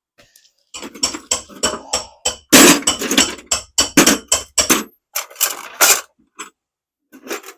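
Irregular clinking and knocking of loose metal hardware being rummaged through and handled, old washers among it. The clatter is busiest from about one to five seconds in, with a few more clinks near the end.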